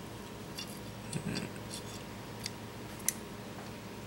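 Metal vise grips being handled and clamped onto a small steel washer: a few scattered sharp metallic clicks and taps, the sharpest about three seconds in.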